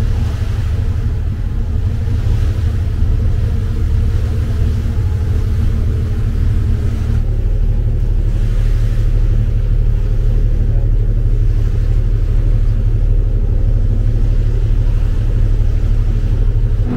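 Passenger ferry's engine running steadily at cruising speed, a low, even drone.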